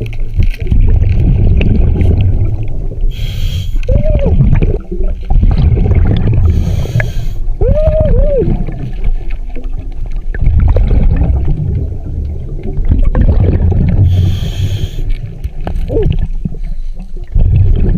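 Heavy low rumble of water or wind on the microphone, with short hissing bursts about three times and a few muffled voice-like sounds that rise and fall in pitch.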